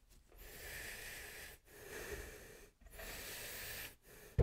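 Glue being spread across hardwood veneer by hand, heard as three faint scraping strokes of about a second each.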